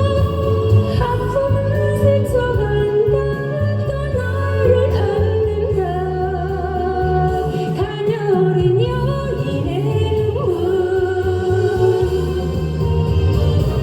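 Music from a Korean trot song: a melody held in long notes with vibrato over a steady bass accompaniment.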